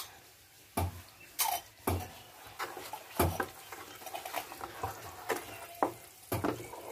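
Wooden spatula stirring thick boiling jaggery syrup with ghee in a non-stick pan, knocking against the pan at irregular moments, over a faint bubbling of the syrup. The syrup has been boiled to the ball-forming stage for peanut laddu.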